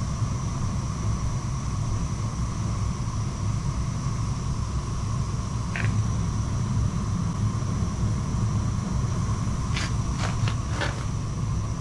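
Weil-McLain EGH-125 gas-fired steam boiler running, a steady low rumble with a constant high tone above it and a few short clicks near the end.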